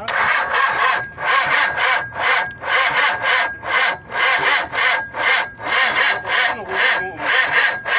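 A hand tool is drawn back and forth in even, rhythmic scraping strokes, about two a second, like hand sawing or filing.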